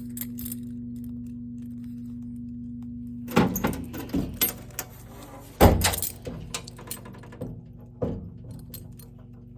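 Keys jangling and clacking against metal in several short bursts, the loudest a little past the middle, over a steady low hum.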